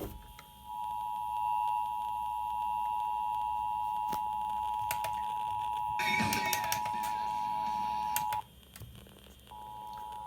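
Emergency Alert System attention signal, the steady two-tone alarm (853 Hz and 960 Hz together) heard from an FM radio. It stops a little past eight seconds in and comes back about a second later. A brief burst of noise sounds over it around six seconds in.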